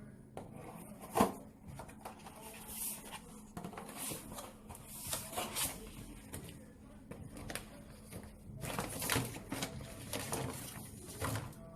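Packaging being handled and opened: irregular crinkling and rustling with scattered clicks, and a sharp knock about a second in.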